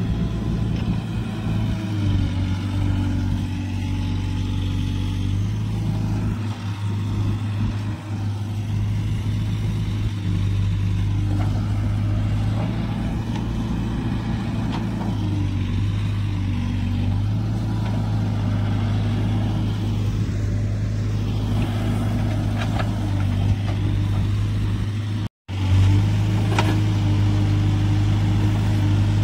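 Diesel tractor engines running steadily at low revs, their pitch stepping up and down a little as the throttle changes. After a brief cut near the end, a Case 770EX backhoe loader's diesel engine runs on as its bucket swings a load of mud.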